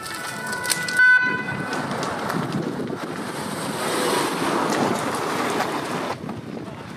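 A short, loud horn toot about a second in, followed by a Ford Transit fire van driving up and past close by, its engine and tyres mixed with wind noise on the microphone; the sound cuts off abruptly about six seconds in.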